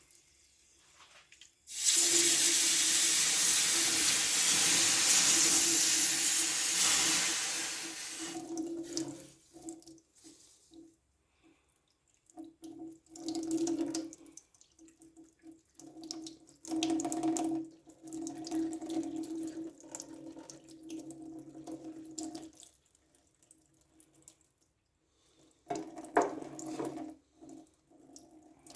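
Water rushing and splashing: a loud steady rush for about six seconds that fades away, then a run of shorter stop-start gushes.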